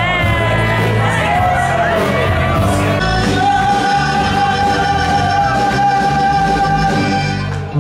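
A song with a singer holding long notes over a band. The sound changes abruptly about three seconds in and dips briefly near the end.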